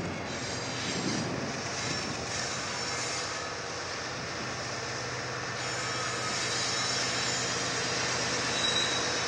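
Lead diesel-electric locomotives of a BNSF iron ore train, a GE ES44AC and an AC44CW, with their engines droning as the train approaches. The sound grows louder from about six seconds in.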